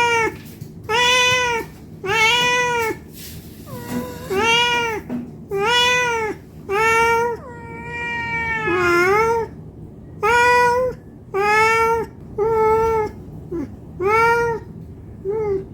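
Domestic cat meowing over and over, about a dozen short arched meows roughly a second apart, with one longer drawn-out meow in the middle that falls in pitch at its end: a hungry cat asking for food.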